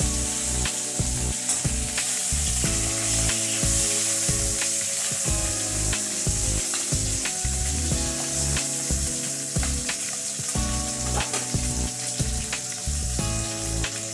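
Small bata fish (baby carp) sizzling steadily as they fry in mustard oil in a wok, with a spatula scraping and clicking against the pan as it turns them. Background music runs underneath.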